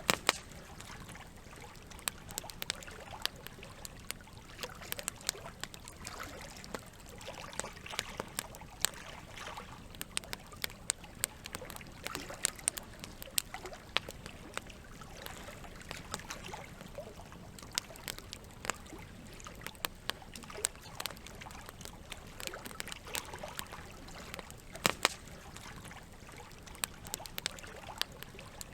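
Wood campfire crackling, with frequent sharp irregular pops and snaps, a few much louder than the rest, over a steady wash of running water.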